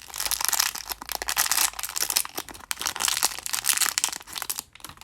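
Small plastic blind bags crinkling as they are handled and opened by hand: a dense run of crackles that dies away just before the end.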